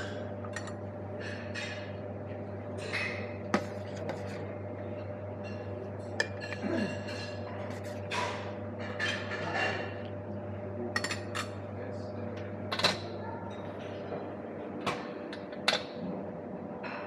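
Serving utensils clinking against stainless chafing dishes and a china plate, a dozen or so short sharp clinks, over a steady hum and background voices.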